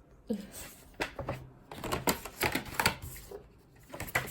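Paper leaflets and booklet pages being handled and flipped: a run of rustles and quick crisp clicks.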